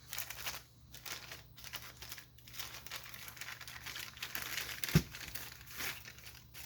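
Packaging crinkling in repeated rustles as a newly unboxed paintball marker body is unwrapped and handled, with a single sharp knock about five seconds in.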